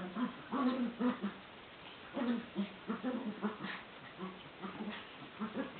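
A small dog and a raccoon play-fighting, with short growling yips in quick clusters about once a second.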